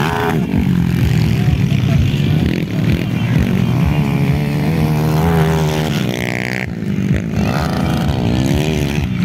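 Motocross dirt bike engines revving hard as the bikes race over the track jumps, the pitch rising and falling again and again as riders open and shut the throttle. A short high tone sounds about six seconds in.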